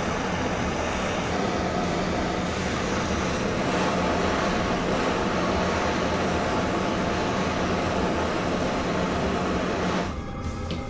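Small heat gun running steadily with an even hum and rush of air, heating a steel rack piece so it can be bent; it cuts off abruptly near the end.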